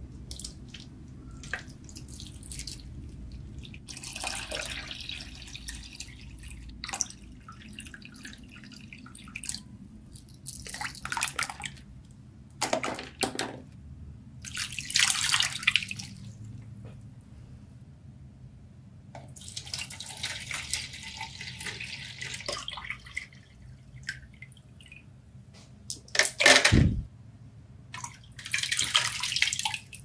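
Water poured in several separate pours from a small plastic cup into small clear acrylic tanks, splashing and trickling. About three-quarters of the way in there is one loud, low thump.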